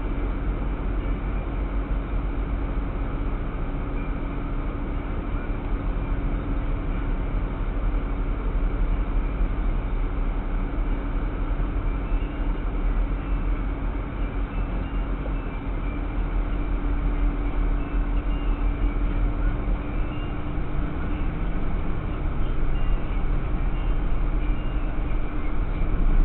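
Limo truck engine idling, heard from inside the cab: a steady low rumble with a steady hum. It grows a little louder over the last few seconds as the truck starts to move.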